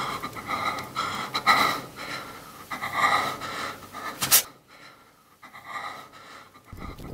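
A man panting in quick, frightened breaths. A sharp noise comes about four seconds in, and after it the breathing falls away.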